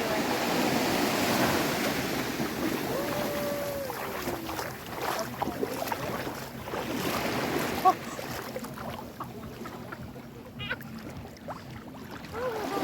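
Sea surf washing in shallow water, fuller in the first few seconds and then easing, with a single sharp tap about eight seconds in.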